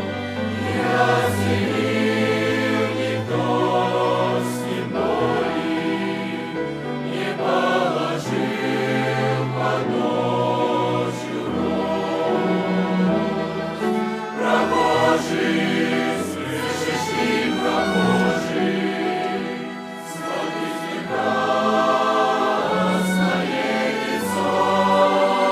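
Youth choir singing a hymn in several parts, with held low notes underneath.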